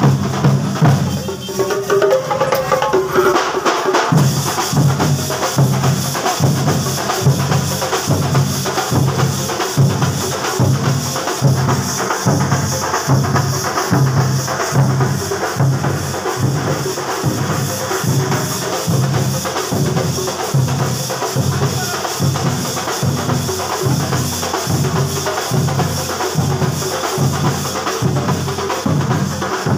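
Procession drum band beating large double-headed drums with curved sticks in a steady, driving rhythm, about two to three deep beats a second.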